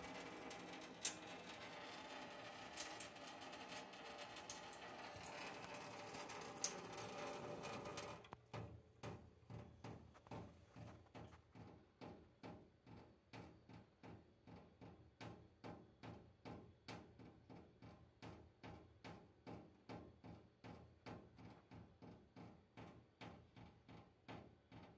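A thin stream of tap water trickling steadily into a stainless-steel kitchen sink. About eight seconds in it stops and gives way to regular dripping, about two drips a second, landing on the steel.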